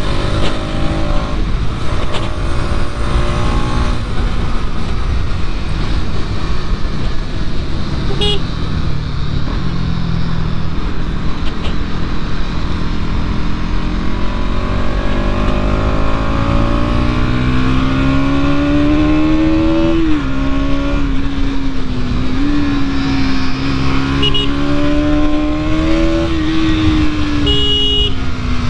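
Bajaj Pulsar NS200's single-cylinder engine under way, its pitch climbing as the revs rise, dropping suddenly about two-thirds in, then rising and falling again. Steady wind and road rush lies under it.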